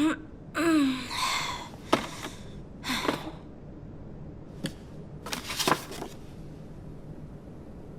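A short wordless voice sound falling in pitch, then scattered sharp clicks and brief rustles.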